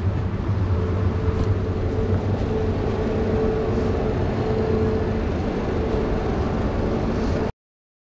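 Busy city-street background noise: a steady rumble of passing traffic with a faint steady hum, cutting off suddenly to silence near the end.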